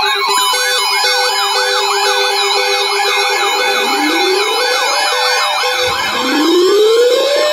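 Several electronic sirens sounding at once: fast warbling yelps layered over a steady tone and a beep repeating about twice a second. A slow rising wail starts about halfway through and again near the end.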